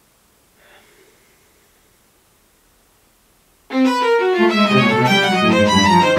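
Near silence with a faint short sound just under a second in. Then, about two-thirds of the way through, string music starts abruptly and loudly: a quick run of bowed string notes stepping down into low held notes.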